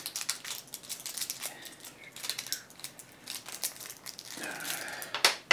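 Plastic wrapping on a pack of AA batteries being crinkled and torn open by hand: a run of small crackles and clicks, with a sharper snap near the end.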